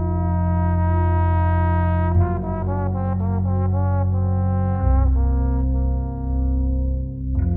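Slow ambient music of sustained chords that change about every two to three seconds, with a wavering, trembling passage in the middle.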